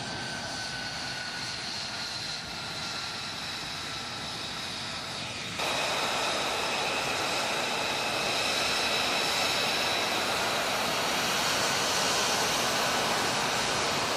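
F-35A Lightning II's single F135 turbofan running at low taxi power: a steady jet rush with a high turbine whine that slowly falls in pitch. About five and a half seconds in the sound jumps louder and brighter and stays that way.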